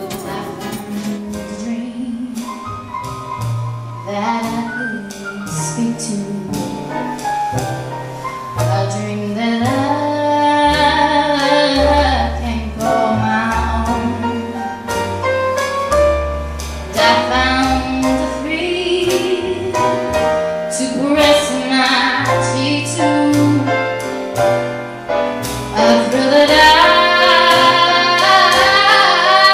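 Female vocalist singing a slow jazz-soul song live with a piano trio accompaniment, bass notes moving step by step beneath the voice. The band and voice build in loudness toward the end.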